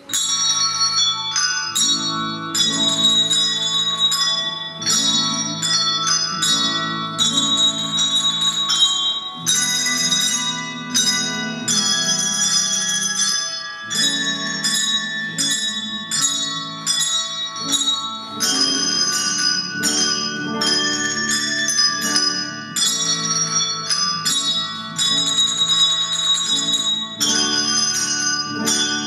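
A handbell ensemble playing a piece. Many bells are struck in quick succession and ring on in chords.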